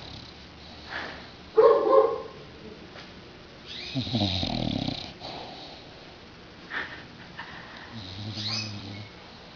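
Bulldog snoring in its sleep: a string of separate wheezing, rattling snores, the loudest about two seconds in and a longer rattling one around the middle.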